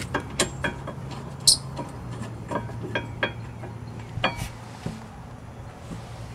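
Scattered light metallic clinks and taps from steel bracket bolts being threaded by hand into a rear brake caliper bracket. A few sharper clinks stand out about half a second, a second and a half, and four seconds in.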